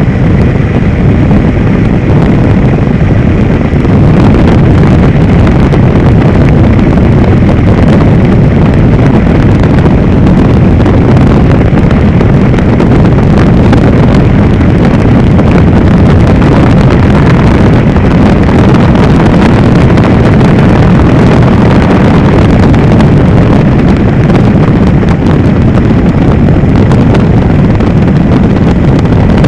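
Helicopter in flight heard from aboard: a loud, steady rotor and engine drone with wind buffeting the microphone.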